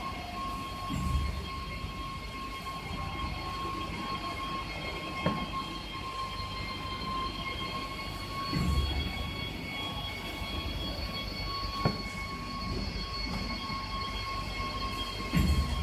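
Cylindrical screen printing machine running: a steady mechanical hum with a high whine in it. Three heavy low thuds come several seconds apart, and two sharp clicks fall between them.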